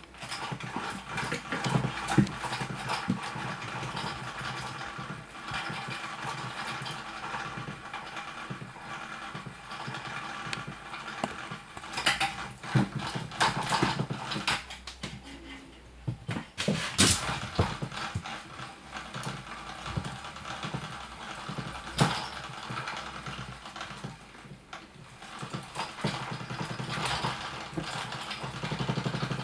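Small motor of a battery-powered spinning butterfly cat toy whirring steadily as it swings the butterfly wand around, with several sharp knocks and taps as the kitten bats at the toy.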